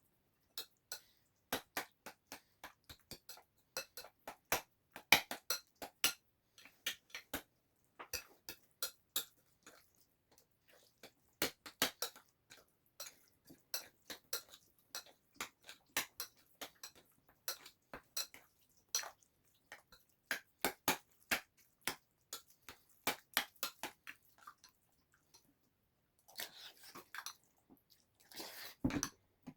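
Eating sounds played at double speed: a spoon repeatedly clicking and scraping against a bowl, with chewing, as curry and kimchi are eaten. Near the end there is a short, noisier rustling stretch.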